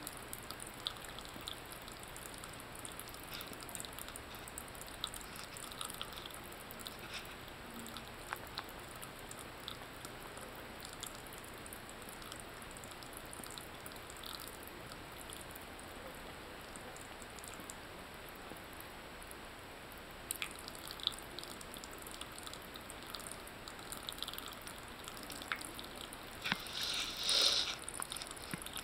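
Thin stream of tap water trickling into a ceramic bathroom sink, with small irregular ticks of drips and a cat lapping at the stream. A brief louder burst of sound comes near the end.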